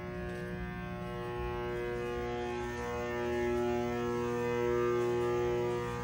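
Large electrical transformer humming steadily, a mains hum with many buzzy overtones, getting somewhat louder about halfway through.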